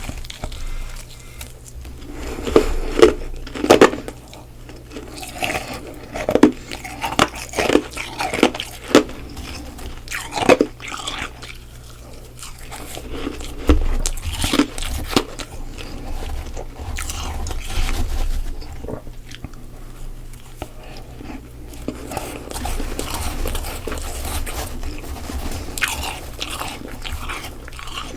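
Close-miked biting and chewing of freezer frost: a run of sharp, loud crunches in the first half, then steadier, softer chewing.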